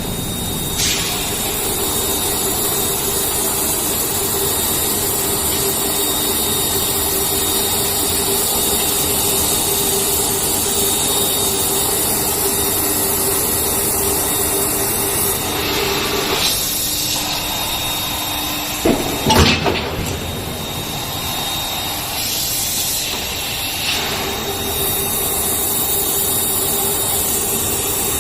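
Gear-blank forging line machinery running with a steady hum and hiss, broken by a few sharp metallic knocks past the halfway point, the loudest about two-thirds of the way through.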